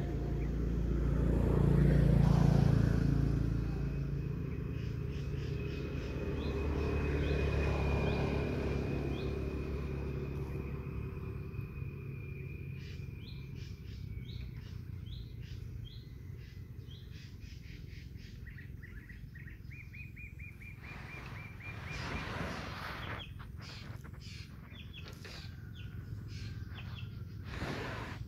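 Two motor vehicles pass on a road, their engines swelling and fading over the first ten seconds or so. After that, small birds chirp repeatedly, with a short high trill about two-thirds of the way through.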